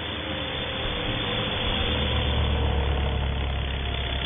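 Art-Tech AT-6 Texan RC model plane passing overhead, its onboard sound card playing a simulated radial-engine rumble over the electric motor and propeller. The rumble grows louder toward the middle and then eases off as the plane goes by.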